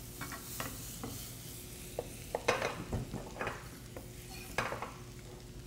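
Butter sizzling quietly in a sauté pan as it starts to brown, with a few scattered sharp knocks of kitchen utensils.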